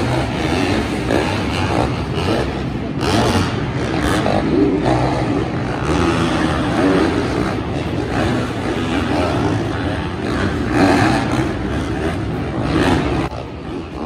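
Several four-stroke supercross dirt bikes running on the track, their engines revving up and down as they ride the jumps and whoops, with overlapping pitches rising and falling. The sound drops away a little near the end.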